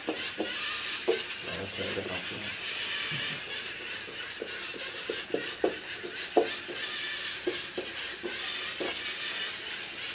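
LEGO Mindstorms NXT line-following robot driving: its servo motors and gear trains whirring steadily, swelling and easing slightly as it steers along the line, with scattered soft clicks and knocks.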